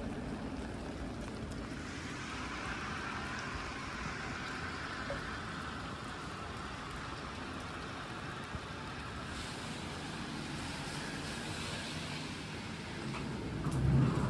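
Rainy street ambience: steady rain with car tyres hissing past on the wet road, one swelling past in the middle. A louder low rumble comes in near the end.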